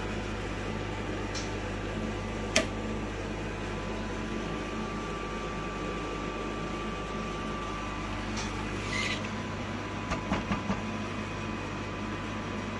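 Steady hum of a Cressington vacuum carbon-coating system running, with a sharp click about two and a half seconds in and a quick run of small clicks near the end as its controls are worked.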